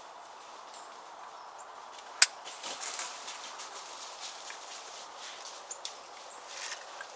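Footsteps crunching through dry brush and leaves, with one sharp snap about two seconds in, and faint bird chirps in the background.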